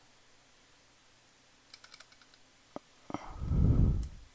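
A few faint computer clicks, a quick run of small ticks about halfway through and two single clicks after it. Then a low rumbling puff near the end, the loudest sound here.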